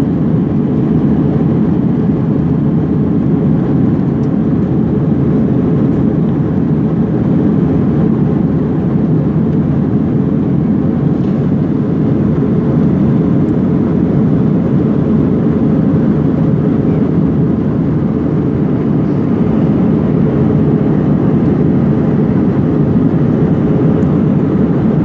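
Steady cabin noise inside an Airbus A321-200 in its climb after take-off: a steady, even roar of the jet engines and airflow, heard from a window seat beside the wing.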